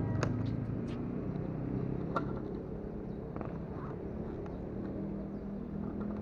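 Steady road and vehicle noise with a low engine hum, broken by a few faint clicks.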